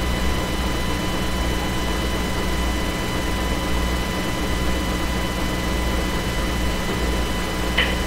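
Steady radio hiss with a low hum and faint steady whistle tones, the open-channel noise of an air-traffic radio feed between transmissions; a short click comes just before the end.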